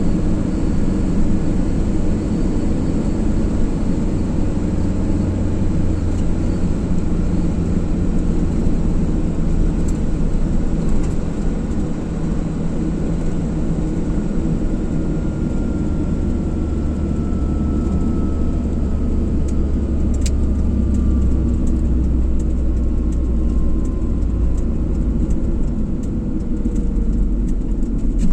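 Car driving on the road: steady engine and tyre noise with a deep rumble. A faint whine slowly falls in pitch through the middle, and small scattered clicks come near the end.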